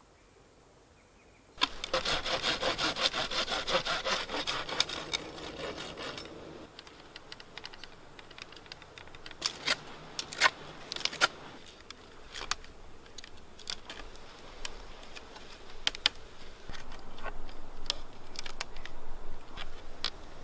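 A saw cutting through wood in quick, rhythmic strokes for about five seconds, followed by scattered sharp clicks and scrapes of a knife working a stick.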